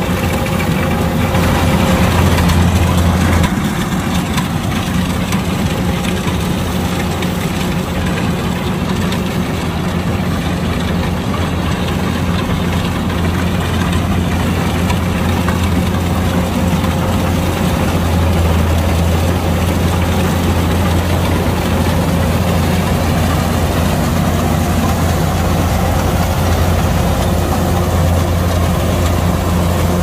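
Kubota DC-105X combine harvester's diesel engine running steadily, a little louder for a moment about two to three seconds in.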